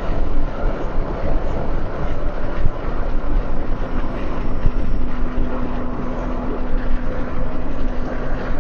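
A car driving: steady road and wind noise with a low engine rumble. A steady hum joins about four seconds in.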